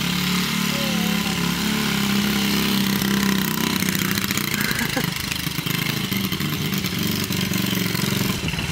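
Yamaha TT-R90 dirt bike's small four-stroke single-cylinder engine running at low speed as it is ridden, its pitch shifting a little up and down.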